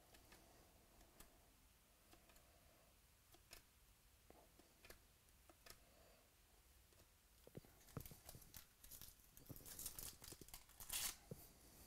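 Faint ticks of trading cards being slid off the front of a stack one by one, then a shiny foil trading-card pack wrapper crinkling and tearing open over the last few seconds, the loudest sound.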